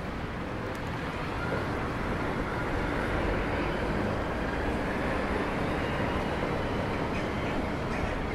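Steady outdoor ambience with a low, even rumble.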